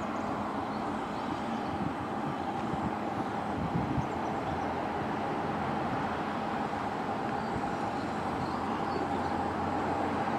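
Narrow-gauge steam locomotive drawing slowly along a station platform with a steady hiss of steam.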